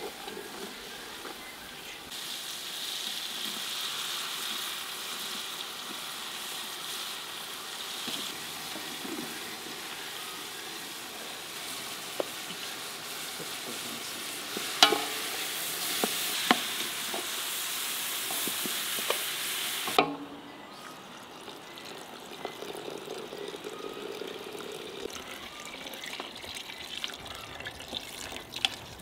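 Onion and tomato sizzling in oil in a large aluminium pot while a wooden spoon stirs. About 15 seconds in come a few sharp knocks of the wooden spoon on metal as bulgur is scraped in from a steel bowl. About 20 seconds in the sizzle drops away suddenly, leaving quieter stirring.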